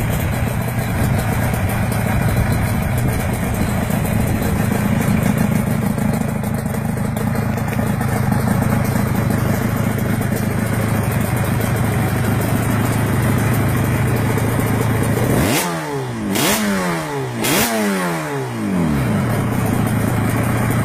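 Suzuki RGV250 VJ22 motorcycle, fitted with a 500cc engine, idling steadily. Near the end the throttle is blipped three times in quick succession, the revs rising sharply and falling back each time before it settles to idle again.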